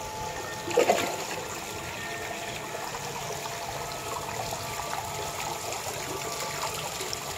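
Small garden fountain jet splashing steadily into a koi pond, with a short louder sound about a second in.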